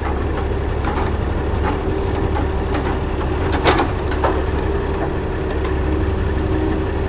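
Diesel log loader running steadily with a held hydraulic whine while it loads logs onto a log truck, the logs knocking and clunking several times, loudest about halfway through.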